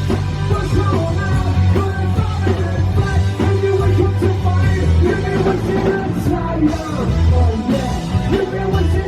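Live punk rock band playing a song, with a singer over the band.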